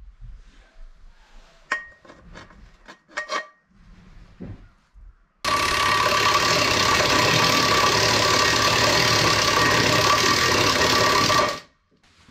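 A few light metallic clinks as the pan is handled, then a handheld power drill runs steadily for about six seconds, boring a hole through the side of a metal pan with a constant whine and metal-cutting hiss, and stops abruptly.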